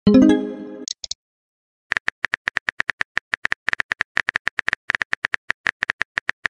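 A short message chime of several pitched tones fading away, then after a brief pause rapid smartphone keyboard tap clicks, about eight a second, as a message is typed.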